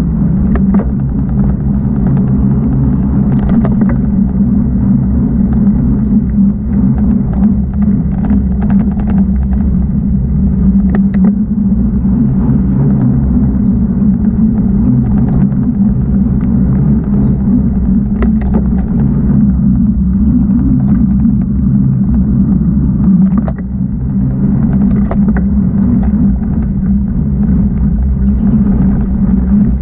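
Mountain bike riding along dirt singletrack: a loud, steady low rumble on the camera's microphone, with frequent sharp clicks and rattles from the bike over the bumps.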